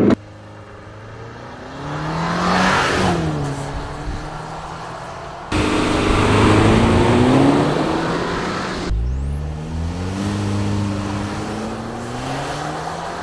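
A 2023 Chevy Colorado Trail Boss's 2.7-litre turbocharged four-cylinder accelerating hard on a 0-60 mph run, heard from outside the truck. The engine pitch climbs and drops through the gear changes, across a few takes that cut abruptly about five and a half and nine seconds in.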